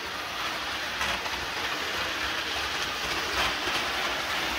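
Hornby Virgin 125 HST model train running on its layout track, giving a steady whirring running noise with a few faint clicks from the wheels on the rails.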